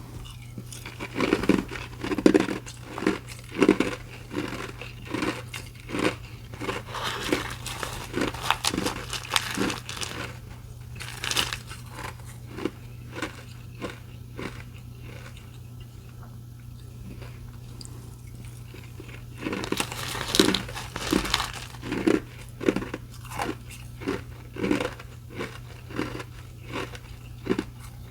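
Close-up crunching of restaurant ice being bitten and chewed: a run of sharp, uneven crunches that come in thicker flurries with fewer crunches between them, over a steady low hum.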